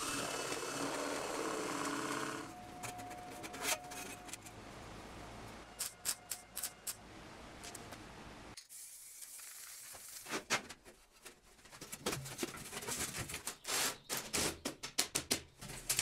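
Workshop hand work of emptying sand out of the flue-pipe water-heater jacket and filling it with graphite powder. A steady machine-like hum for about the first two seconds, then scattered light clicks and knocks, with an abrupt cut about halfway through.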